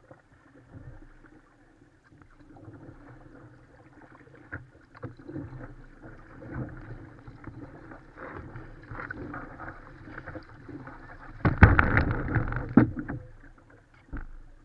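Kayak paddling: paddle blades dipping and splashing in slow river water, with small knocks, and a louder burst of splashing and knocking about two-thirds of the way through.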